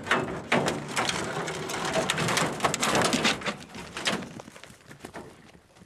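Rattling and clattering of an aluminium diamond-plate dog box as its latched barred doors are opened and the hunting dogs scramble out. The noise is a dense run of sharp knocks that dies down about four seconds in.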